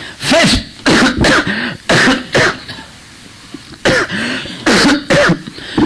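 A man coughing and clearing his throat in a run of short, loud coughs: a cluster in the first couple of seconds, a pause, then a second cluster near the end.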